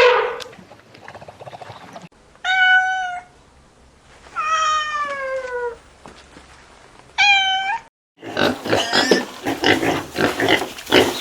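A cat meowing three times, the middle meow longer and falling in pitch. Then, from about eight seconds in, a pig grunting in rapid, rough pulses.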